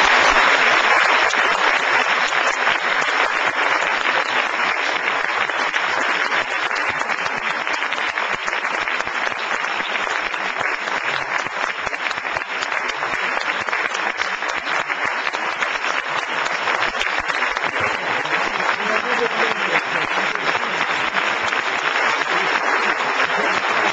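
Sustained applause from a large audience, starting loud and holding steady throughout.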